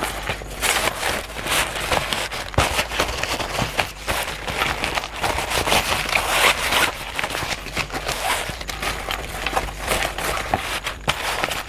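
Stiff bag fabric rustling and crinkling as it is handled, pressed flat and turned by hand, in irregular bursts over a low steady hum.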